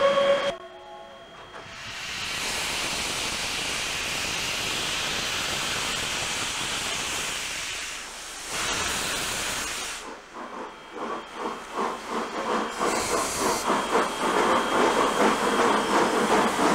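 A steam whistle sounds briefly and stops about half a second in. From about two seconds in comes a steady hiss of steam blowing from the locomotives' cylinder drain cocks. From about ten seconds in, exhaust chuffs begin and quicken as a steam locomotive starts to pull away.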